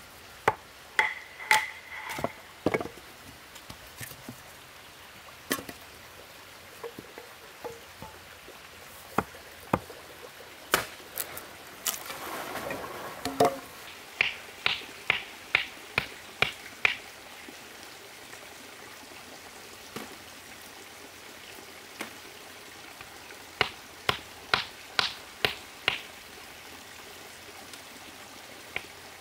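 Wood being chopped and split with a blade: sharp knocks, a few scattered at first, then two runs of evenly spaced strokes at about two a second. There is a short rustling noise about twelve seconds in.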